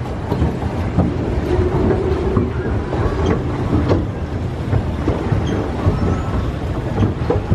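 Pedal-powered flamingo paddle boat being pedalled and steered: a steady mechanical rattle of the pedal drive, with many small irregular clicks and knocks.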